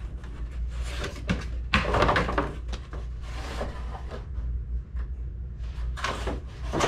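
Cardboard packaging being handled and pulled away: irregular scraping, rustling and knocking of cardboard, loudest about two seconds in and again near the end, over a steady low hum.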